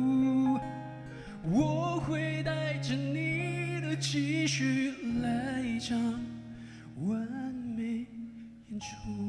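Live male voice singing a slow ballad, holding notes with vibrato, over an acoustic guitar accompaniment. The phrases are separated by short breaks.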